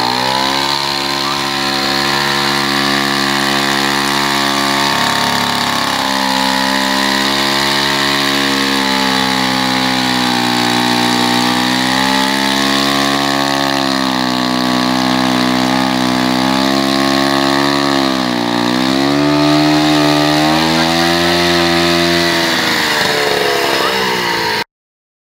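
Large vintage chainsaw engine running steadily while sawing through a log, its pitch sagging twice as the chain bites and loads the engine in the cut. The sound stops abruptly near the end.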